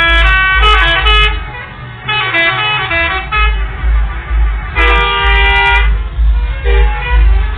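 Telolet bus horns, the multi-tone musical air horns of Indonesian coaches, playing quick runs of notes. They come in three bursts with short pauses between, the last the loudest, then fainter tones trail on over a low rumble.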